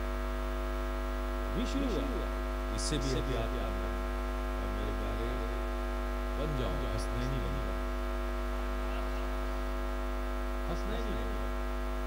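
Steady electrical mains hum and buzz from a public-address sound system, with a few short snatches of a man's voice through the microphone over it.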